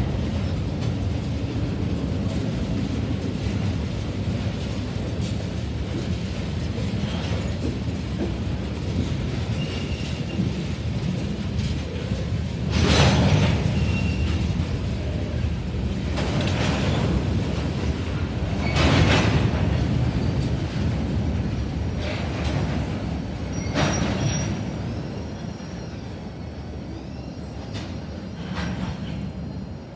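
Freight train of tank cars and covered hoppers rolling past: a steady low rumble of steel wheels on rail, broken by several loud clanks and a few short high wheel squeals. It grows quieter near the end.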